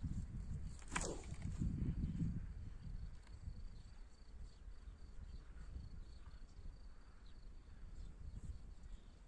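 A discus-launch glider swooshing away through the air right after the throw: a quick falling whoosh about a second in. Low wind noise on the microphone is strongest in the first two seconds or so, and a faint steady high insect trill from the grass carries through.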